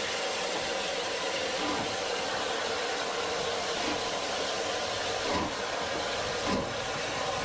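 Southern Railway Q1 0-6-0 steam locomotive moving slowly with a steady hiss of steam, and a few low thumps in the last couple of seconds.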